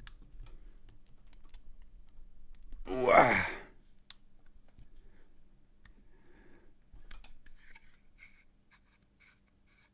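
A man's drawn-out "ooh", falling in pitch, about three seconds in. Around it are faint scattered clicks and handling noises from a vape mod's plastic case and screwed-on tank being worked in the hands.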